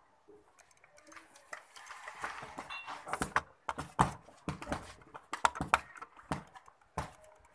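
Boxing gloves landing in sparring: an irregular run of sharp slaps and thuds as punches hit gloves and bare bodies, the hardest about four seconds in and again a little after five seconds.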